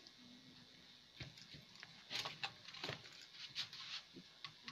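Faint clicks and light knocks from hand tools being handled at a soldering job, bunched between about one and four seconds in, as a reel of solder is set down into its stand.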